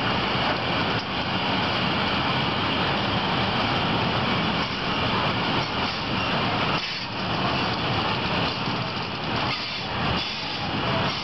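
Freight train of covered wagons rolling past close by, a steady noise of wheels on rails with brief dips about seven and ten seconds in.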